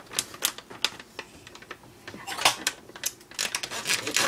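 Quick, irregular clicks and crinkles of a packet of cornbread mix being handled, sparse at first and coming thick and fast in the second half.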